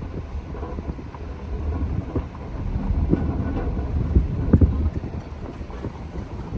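Low rumble of a car driving, with wind buffeting the microphone and a few thumps a little past the middle.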